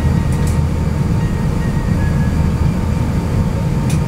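Steady low rumble inside an Airbus A350-900's cabin as it taxis after landing, with two faint short ticks, about half a second in and near the end.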